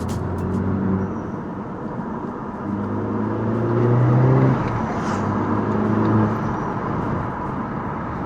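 Audi S3 8P's turbocharged 2.0 TFSI four-cylinder, fitted with a Supersprint intermediate pipe, running while the car is driven. The engine note climbs and grows loudest about three to four seconds in, then swells briefly again near six seconds.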